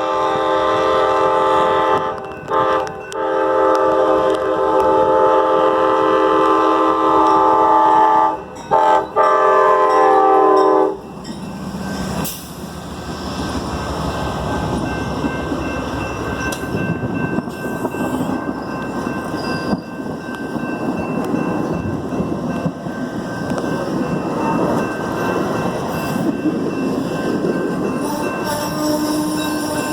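Amtrak passenger train's multi-note air horn sounding a run of long blasts with a few short breaks, stopping about eleven seconds in. Then the train rolls past with a steady rumble and clatter of wheels on rail.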